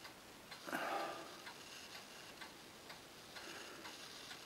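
Faint, regular ticking, about one tick a second, with a brief louder rustle about a second in.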